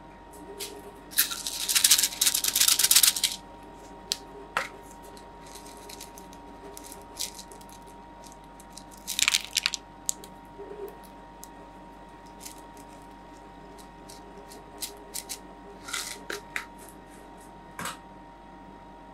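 Heart-shaped sugar sprinkles rattling as they are shaken out over a cup of rolled ice cream, in two dense bursts, about a second in and about nine seconds in. Scattered light ticks follow near the end.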